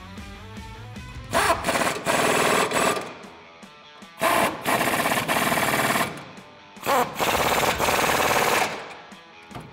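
Pneumatic impact wrench hammering in three bursts of about two seconds each, tightening the rear leaf-spring shackle bolts.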